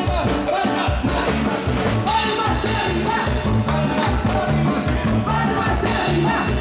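Loud upbeat dance music: a singer over a steady, repeating bass and drum beat.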